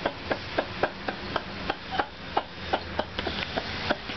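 A man laughing helplessly in short, rapid bursts, about three or four a second, with no words.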